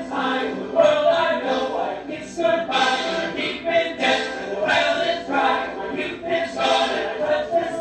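Male vocal ensemble singing together as a group in a stage musical number.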